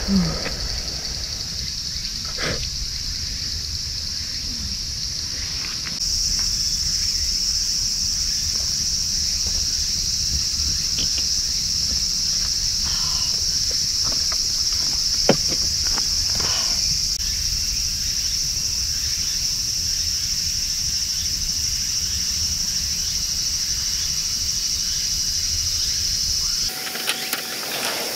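Steady, high-pitched chorus of forest insects, a continuous drone that grows louder about six seconds in, with a few faint clicks and knocks over it.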